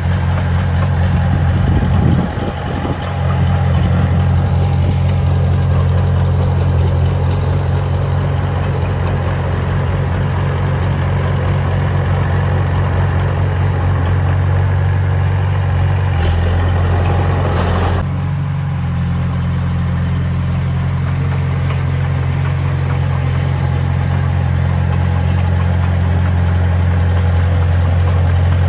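Diesel engine of heavy construction machinery running steadily at a low, even pitch. A higher-pitched noise layered on the engine drops away about eighteen seconds in.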